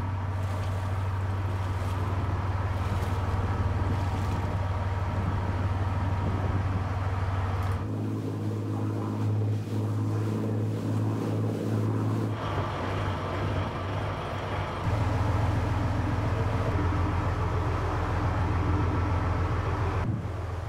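Fishing boat's engine running steadily under way, a deep even hum, with water rushing along the hull. The tone of the hum changes abruptly a few times, about 8, 12 and 15 seconds in.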